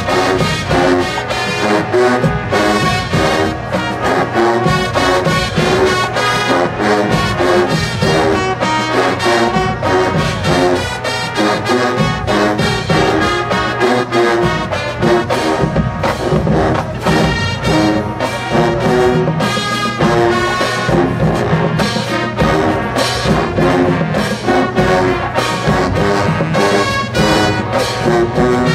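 Marching band playing at full volume: a brass section of trumpets, trombones and sousaphones over a drumline beating steadily.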